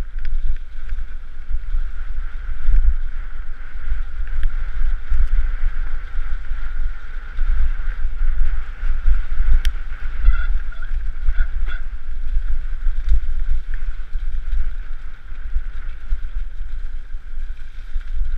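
Wind buffeting a helmet-mounted camera's microphone during a fast mountain bike descent on a muddy trail, a heavy gusting rumble with the hiss of tyres and bike rattle underneath. A few short squeaks about ten seconds in.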